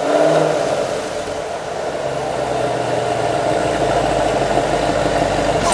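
C7 Chevrolet Corvette's 6.2-litre V8 idling through Granatelli long-tube headers and X-pipe, exhaust in track mode. A deeper low drone joins about two seconds in.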